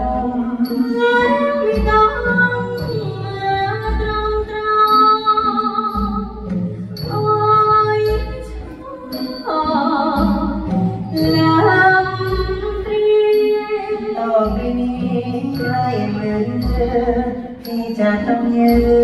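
A Thai vocal duet sung live over symphony-orchestra accompaniment, with a steady beat and a sung melody throughout.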